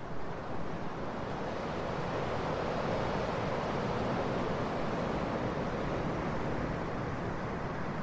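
Ocean surf: a steady rushing wash of waves that swells a little about halfway through and then eases off.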